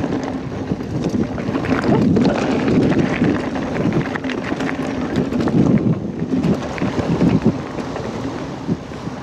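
Wind rushing over the microphone of a riding mountain biker, with tyre noise and many small rattles and knocks from the bike on the trail.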